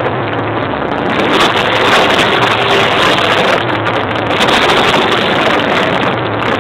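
Many motorcycle engines running and revving together as a motorcycle "orchestra", a dense wall of engine noise that gets louder about a second in, with wind buffeting the microphone.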